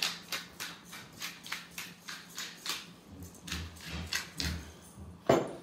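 Salt mill being ground over salad plates: a regular series of short gritty crunches, about three to four a second, ending with a louder knock near the end.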